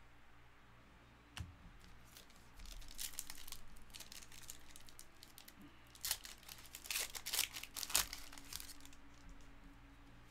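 A foil trading-card pack torn open and its wrapper crinkled in the hands, with the cards slid and shuffled. A soft rustle starts a couple of seconds in, and the crinkling is loudest in sharp crackles between about six and nine seconds.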